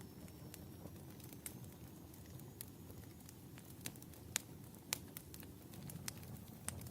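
Wood fire burning in a fireplace: a low steady rumble of flames with scattered sharp crackles and pops, two louder pops a little past four seconds and just before five seconds in.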